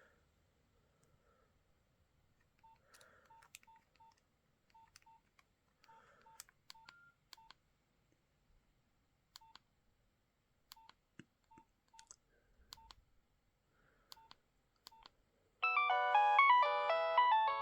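Nokia 6030 mobile phone's keypad: a run of short, single-pitch key beeps and clicks at an irregular pace as its buttons are pressed. About two seconds before the end a loud polyphonic ringtone melody starts playing from the phone's speaker.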